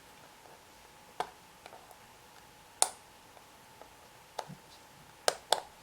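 A few scattered small, sharp plastic clicks, the loudest about three seconds in and two quick ones near the end, as the USB receiver dongle is pried out of its tight storage slot in a Rii mini Bluetooth keyboard.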